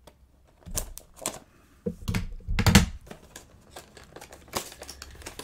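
A HeroClix booster pack being torn open and handled: irregular crinkling, rustling and clicks, busiest about a second in and again two to three seconds in.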